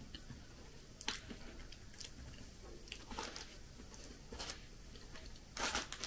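Close-up eating sounds and a thin plastic bag crinkling in short bursts about a second apart as a hand reaches in for pishmanie, the loudest crinkle near the end.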